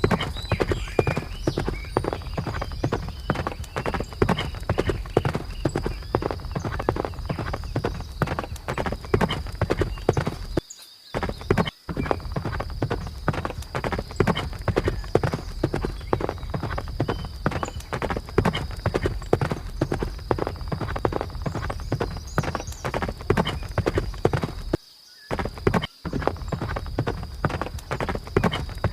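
Horse hooves beating rapidly and continuously, a dense run of hoofbeats that breaks off abruptly twice for about a second, once around a third of the way in and again near the end.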